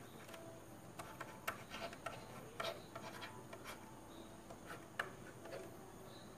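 Faint scratching and light tapping of a stylus writing on a drawing tablet: short irregular strokes and a few sharper taps.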